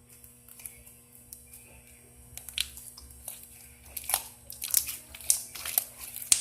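Homemade slime being worked by hand: irregular sticky clicks and pops, sparse at first and busier from about four seconds in.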